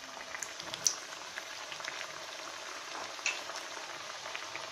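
Mathri dough discs deep-frying in hot oil in a kadhai, the oil sizzling and bubbling steadily around them. Two sharp clicks stand out, about a second in and again past the three-second mark.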